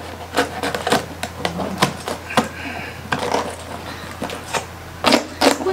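Knife cutting into the crisp skin of a whole roast pig (lechon), a run of irregular sharp crackles and crunches as the blade works through.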